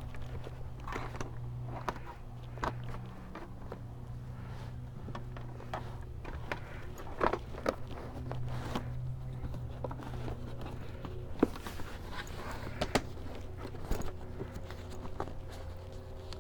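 Upholstery cover being worked back onto a car seat back by hand: scattered rustles, scrapes and sharp clicks, the sharpest about seven and eleven seconds in, over a steady low hum.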